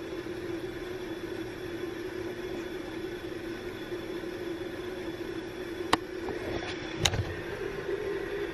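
Steady indoor hum with even background noise, and two sharp clicks about a second apart near the end as the handheld camera is moved.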